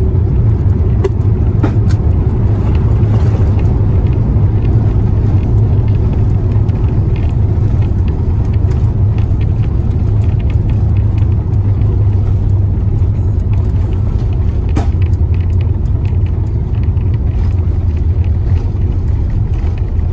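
Deep, steady rumble inside the cabin of an Airbus A350-900 rolling out on the runway just after touchdown: wheels and engines heard through the fuselage. It eases slightly about halfway through as the jet slows.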